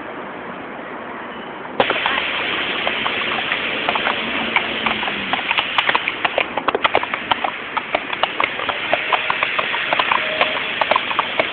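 Horse's hooves clip-clopping in a quick, uneven rhythm as the horse is ridden at a faster gait, starting about two seconds in after a short stretch of steady hiss.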